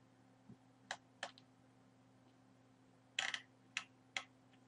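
A handful of faint, scattered clicks from a computer mouse and keyboard being worked, about seven in all, some in pairs, over a low, steady hum.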